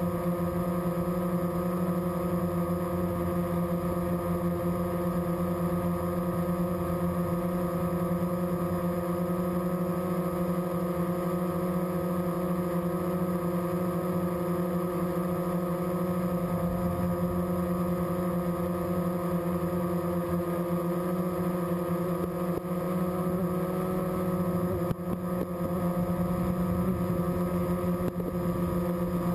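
Steady whine of the electric motors and propellers of a model aircraft carrying the camera, heard on board: an even, unchanging hum made of several held tones.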